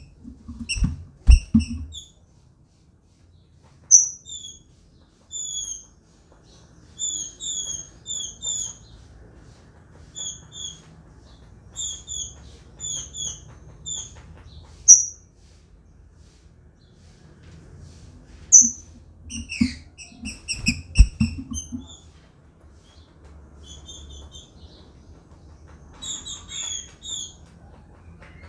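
Female green-winged saltator (trinca-ferro) calling: short high chirps, mostly in pairs and quick series, with a few louder single notes, the calls of a female soliciting mating. A few low thumps come near the start and again about two-thirds of the way in.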